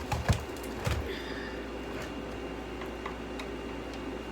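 A few sharp clicks and knocks in the first second, then a steady low hum with a faint high tone.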